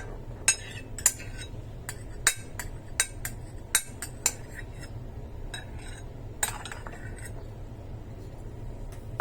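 Tableware clinking as a plate, bowl and utensils are handled to take steamed onion pieces off the plate: about a dozen sharp clinks in the first four and a half seconds, a few more around six to seven seconds in, then they stop.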